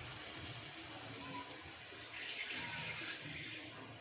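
Hot curry of cauliflower, potatoes and fried eggs hissing and bubbling in the pan just after water has been added. It swells a little after about two seconds.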